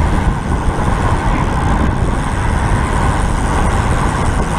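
Steady, loud wind buffeting on the microphone of a camera carried by a road cyclist riding at speed.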